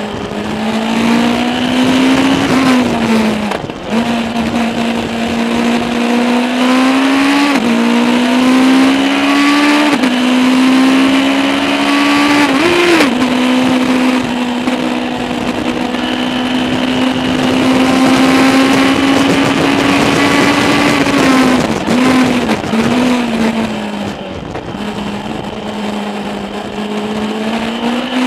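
Legends race car's Yamaha motorcycle engine at racing speed, heard from inside the cockpit: revving up through the gears with several quick upshifts, holding a long steady note flat out, then blipping the throttle on downshifts about three quarters through before pulling away again near the end.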